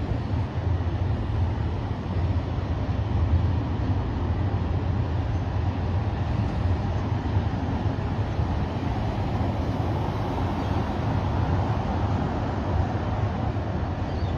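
Steady low rumble and hiss of a vehicle in motion, holding an even level without rising or fading.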